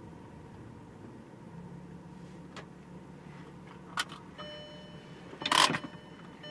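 Car engine idling as a low steady hum inside the cabin. About 4 s in there is a sharp click, then a steady high electronic tone, and about 5.5 s in a short loud clatter.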